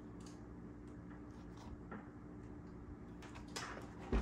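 Handling noise from a new knobby motocross tire being turned by hand: light rubs and clicks of the rubber, growing into rubbing near the end, then a single loud thump as the tire is set down on a wooden table.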